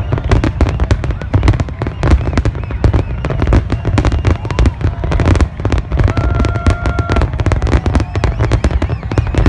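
A large fireworks display going off in a dense, unbroken barrage of rapid bangs and crackles with deep booms underneath. A steady whistling tone comes in about six seconds in and holds for about a second.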